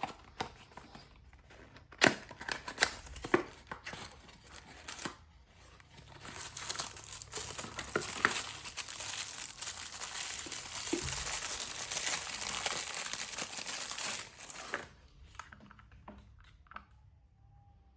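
Happy Meal packaging being torn open and crinkled by hand: sharp crackles and rips for the first few seconds, then a long continuous crinkling that stops about 15 seconds in.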